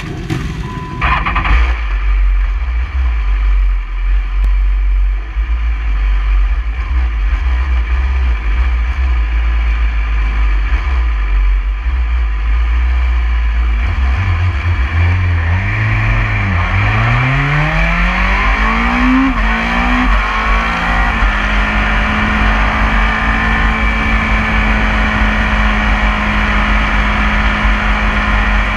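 A 2016 BMW S1000RR's inline-four engine starts about a second in and idles, then rises in pitch several times as the bike pulls away, and settles into a steady note over the last third.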